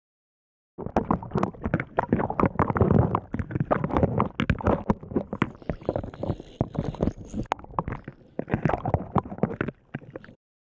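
Water sloshing and splashing around a camera at the water's surface, a fast irregular run of knocks and gurgles as a hand works in the shallow water. It starts about a second in and cuts off suddenly near the end.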